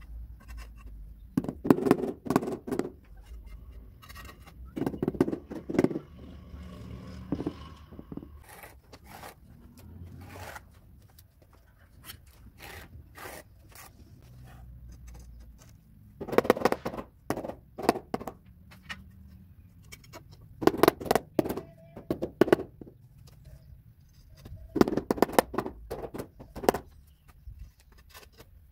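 Ceramic floor tiles being bedded into thin-set mortar with a rubber mallet: bursts of quick taps, several a second, repeated five or six times. Between them a steel trowel scrapes wet mortar.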